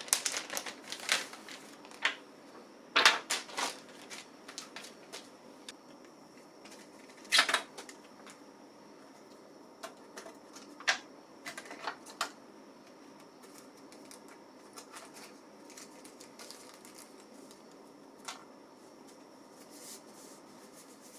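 Scattered light clicks and taps of small laptop drive parts being handled, with louder knocks about 3 and 7.5 seconds in.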